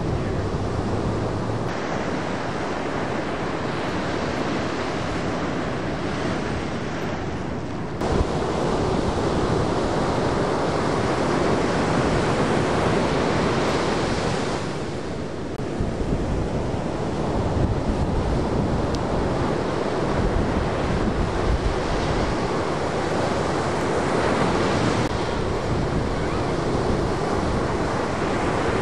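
Ocean surf breaking on a beach, a continuous rush of waves with wind on the microphone. The sound changes abruptly a couple of times, most sharply about eight seconds in.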